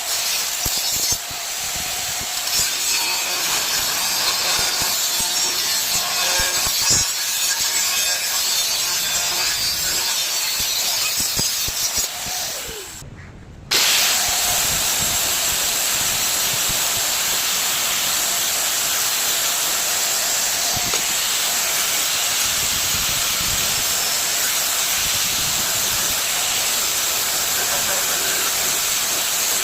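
Welding arc crackling and hissing steadily, broken by a brief drop-out about thirteen seconds in, after which an even hiss continues.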